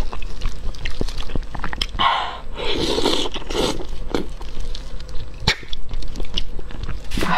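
Close-miked mukbang eating sounds: wet lip smacks and mouth clicks as soft fatty fish is sucked off the bones and chewed, with a longer slurp about two to three seconds in.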